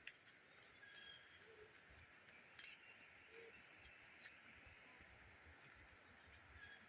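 Faint forest ambience: scattered short bird chirps over a steady soft hiss, with a few light clicks.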